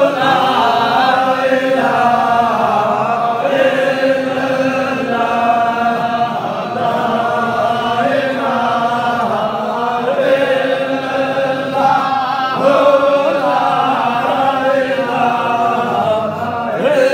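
A crowd of men chanting a devotional recitation together in unison, singing long held notes that glide up and down.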